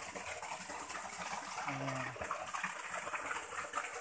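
Small waterfall pouring into a rock pool: a steady rush and splash of falling water. A brief low hum sounds about halfway through.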